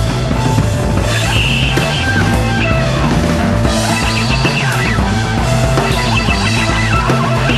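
Jazz-rock band playing with a 1970s feel: electric guitar, keyboards, bass guitar and drums in a dense, steady, loud mix.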